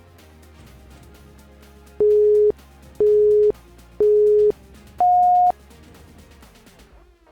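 Workout interval-timer countdown: three short beeps at one pitch a second apart, then a fourth, higher beep, signalling the switch to the next exercise. Electronic background music with a steady beat runs underneath and stops near the end.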